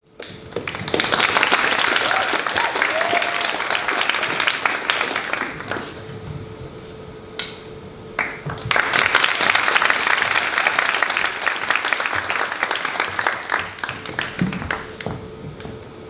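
Audience applauding in two waves, the first lasting about five seconds, then a short lull, then a second wave of about the same length that tapers off.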